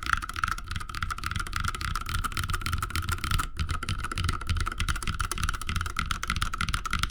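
Fast, continuous typing on a 65% custom mechanical keyboard with an aluminium case, brass plate and lubed Holy Panda tactile switches. The keystrokes come in a dense run, with a brief pause about halfway through.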